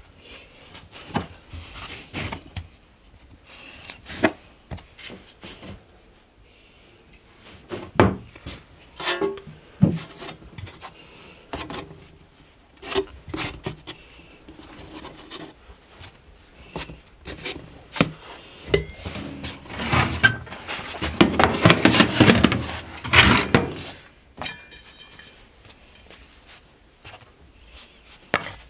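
Hands working bun dough on a floured wooden board and setting the rounds onto metal baking trays: scattered soft knocks and taps of dough, cutter and tray, with rubbing. About twenty seconds in, the rubbing and scraping thickens into a louder stretch lasting a few seconds.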